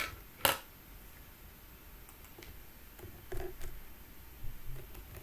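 A single sharp click about half a second in, then a few faint clicks, from working a computer's mouse and keys in a small room.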